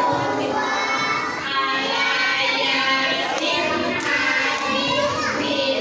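A group of young children singing together, many voices at once.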